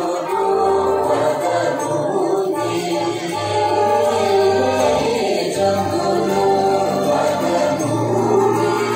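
Dance music with a group of voices singing over sustained instruments and held bass notes.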